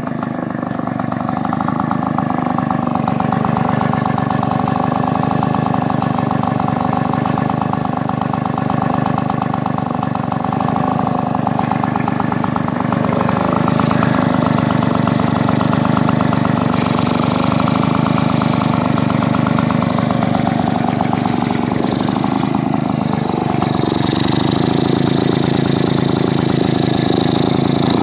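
Early-1950s Jacobsen Lawn Queen reel mower's small two-stroke engine, run on a 16:1 oil premix, running steadily with a rapid even beat on its first start after sitting unused. Its pitch shifts a little about halfway through and again near the end.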